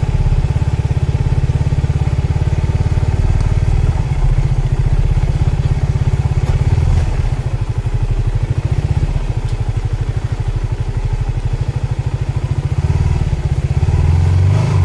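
Motorcycle engine running steadily while riding, a continuous low rapid pulsing rumble.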